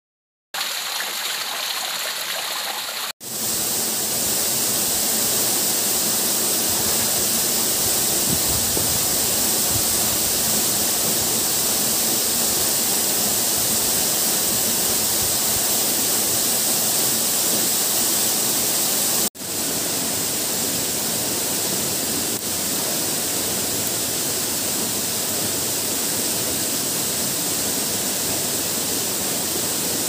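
Waterfall rushing: a steady, unbroken noise of falling water, heavy in the hiss, cutting out briefly three times, just after the start, around three seconds in and about two-thirds of the way through.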